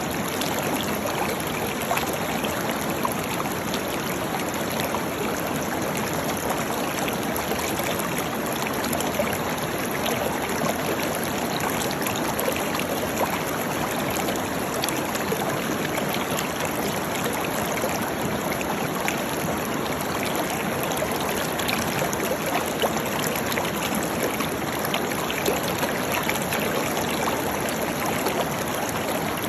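Waterfall: a steady, even rush of falling water with fine splashing, unchanging throughout.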